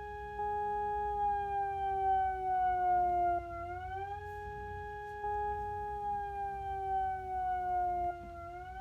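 Electronic warning siren sounding the Attack tone for a tornado alert: a clean chord of several pitches that sweeps up quickly, then glides slowly down over about four seconds. It sweeps up again about a third of the way in and again near the end.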